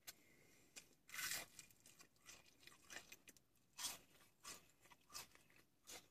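Quiet, irregular crunches of someone biting and chewing fried onion rings, the loudest about a second in.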